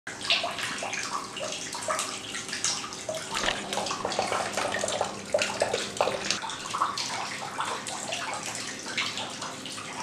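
Water from a small tabletop waterfall fountain trickling and splattering down its rock face into the pool at its base: a steady, busy patter of falling drops.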